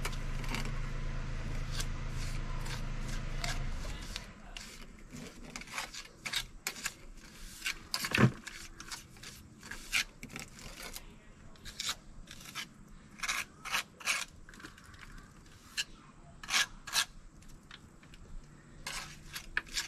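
Steel tuck point tool scraping mortar off a hawk and pressing it into the joints of a concrete block wall, in short irregular scrapes with a sharper one about eight seconds in. A steady low hum is there at first and stops about four seconds in.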